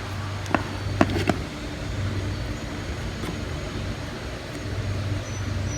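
Three light clicks in the first second and a half as needle-nose pliers and the new nylon pull cord work against the plastic recoil starter housing. A steady low hum runs underneath.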